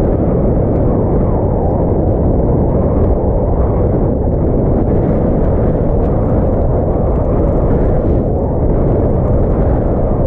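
Strong wind buffeting the camera's microphone: a loud, steady, low rumble with no let-up.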